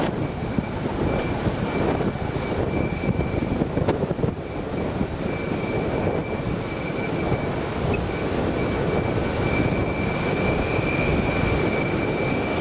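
Steady drilling-rig machinery noise with a thin, steady high-pitched whine over it, and wind buffeting the microphone.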